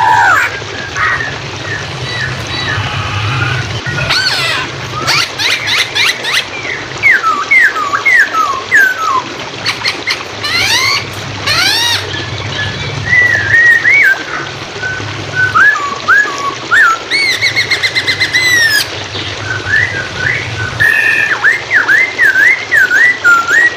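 Poksay hongkong song: loud, varied whistled phrases of quickly rising and falling notes, runs of swooping whistles and fast repeated notes, over a steady rush of flowing water.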